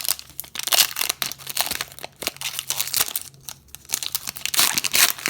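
Foil wrapper of a Pokémon booster pack crinkling and tearing as it is pulled open by hand. Irregular crackles come and go, loudest about a second in and again near the end.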